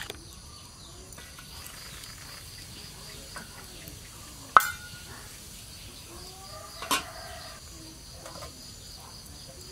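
Lump charcoal burning in a clay cooking stove under a pot. Two sharp cracks come about two seconds apart near the middle, the first the louder. Behind them runs a faint, steady, evenly pulsing high-pitched background.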